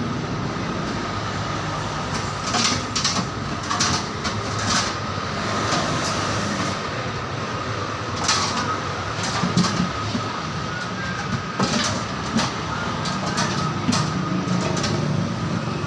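Steady rumble of a moving road vehicle, heard from inside, with a faint steady high whine and scattered light rattles and clicks.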